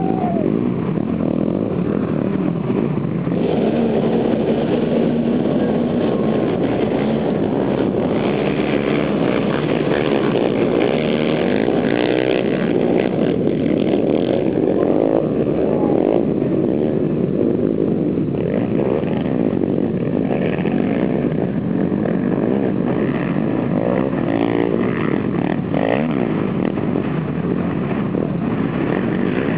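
Many ATV engines running together in a dense, steady drone, with individual engines revving up and down now and then.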